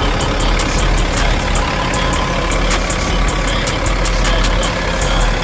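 Cat C13 inline-six diesel of a Peterbilt truck idling steadily, with rapid high ticking over the rumble.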